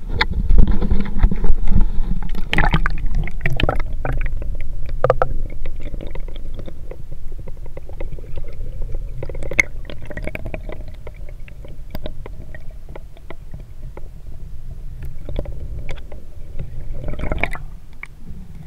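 Water heard through a microphone held underwater in a shallow mangrove channel: a muffled low rumble and gurgling, with many scattered sharp clicks and crackles, loudest in the first two seconds.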